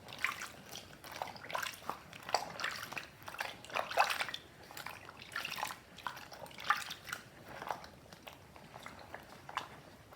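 Water splashing and dripping in a washing-up bowl as a soaked plush toy is squeezed and worked by hand, giving irregular small wet splashes and squelches.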